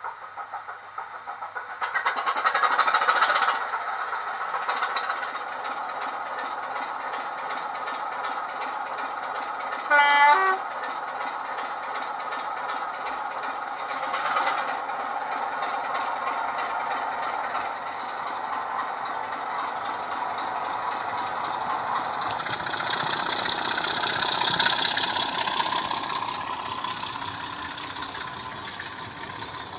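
Model Class 25 diesel locomotive's digital sound (SWD U-Drive sound file) playing through a small double iPhone mini speaker. The engine sound picks up about two seconds in as the loco pulls away, a short horn blast sounds about ten seconds in, and the engine sound fades near the end as the train runs off.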